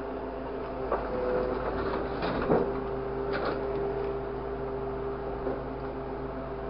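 Grapple truck's engine and hydraulic crane running with a steady whine as the boom swings the orange-peel grapple down into a steel bin, with a sharp metal knock about a second in, a louder clatter about two and a half seconds in and a brief screech just after.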